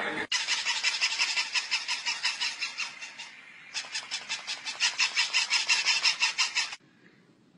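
Several battery-powered plush toy puppies yapping together in a rapid, even, high-pitched chatter. The chatter dies down about three seconds in, starts again, and cuts off suddenly near the end.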